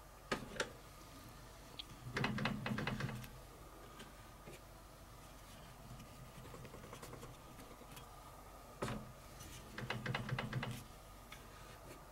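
Cam clamping lever and cast-iron table of a drill press being worked by hand: sharp metallic clicks followed by a second or so of rattling clatter, happening twice, as the table clamp is flicked loose and locked again.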